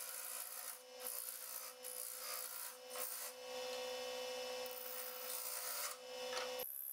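Wood lathe running with a steady motor whine while a turning tool cuts the spinning apricot-wood blank, a hissing scrape that comes and goes in strokes. The whine cuts off suddenly near the end.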